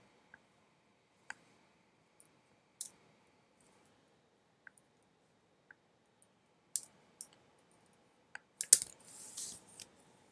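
Scattered small clicks at a computer, a few seconds apart at first, then closer together near the end, where the loudest click comes, followed by a short soft rustle.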